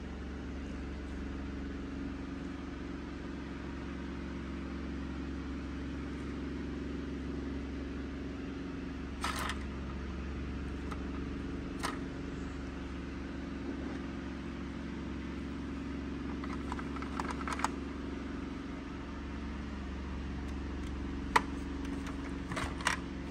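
Steady low mechanical hum, with a few short, sharp clicks now and then; the loudest click is near the end.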